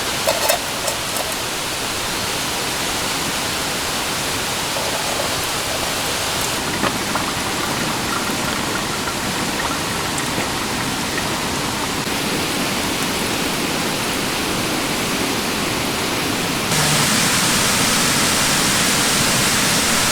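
A small stream running steadily over rocks. It gets louder and brighter about three-quarters of the way through.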